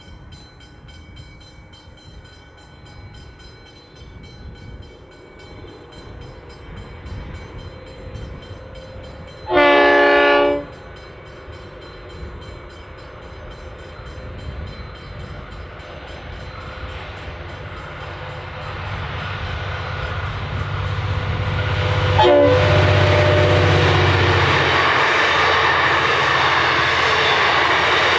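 A V/Line N-class diesel locomotive (EMD two-stroke V12) hauling a passenger train sounds one horn blast of about a second. Its engine drone rises as it comes closer, and it passes with one sharp clack, followed by the loud rush of the carriages' wheels on the rails.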